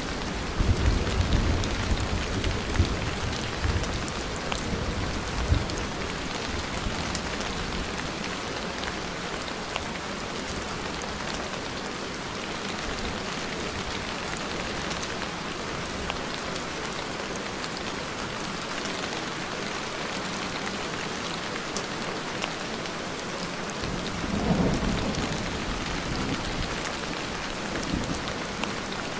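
Steady rain with rolling thunder: a low rumble through the first few seconds and another about 24 seconds in.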